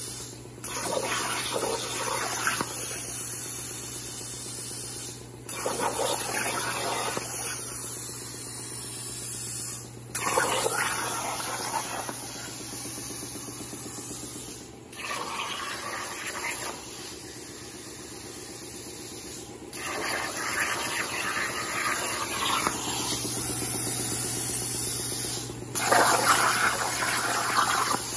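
Hypertherm 65XP plasma cutter torch hissing as it cuts sheet metal on a CNC plasma table. The hiss breaks off briefly about every five seconds and comes back louder as each new cut starts.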